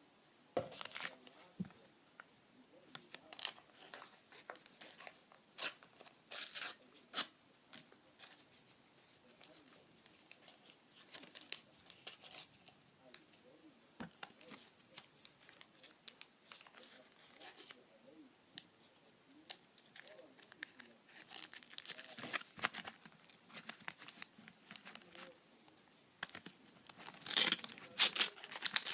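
Topps sticker packets being torn open and the paper stickers crinkled and shuffled by hand: scattered tearing and crackling, loudest in bursts about two-thirds of the way through and again near the end.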